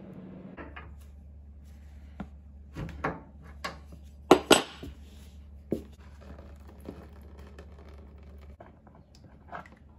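Hands working a radiator valve and its compression fittings on a copper pipe: a scatter of sharp clicks and knocks of metal parts, the loudest two close together about four and a half seconds in.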